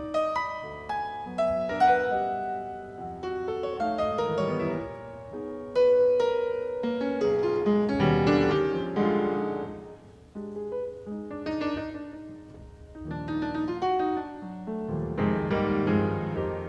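Acoustic grand piano played in a jazz improvisation: a dense flow of runs and chords, with a brief lull just before ten seconds in, then the playing comes back strongly.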